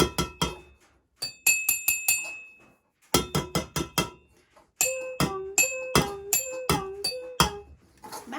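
A spoon tapping a ceramic mug and a plastic mug in quick runs of four or five strikes, the ceramic mug ringing high. In the last few seconds the taps come in a steady alternating rhythm with a child's voice humming along in two alternating notes.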